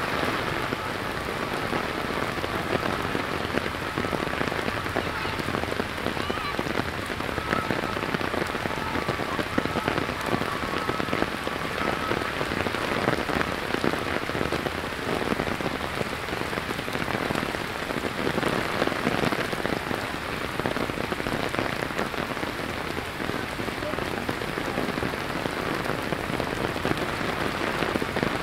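Heavy rain pouring down and splashing on the street, a steady dense hiss.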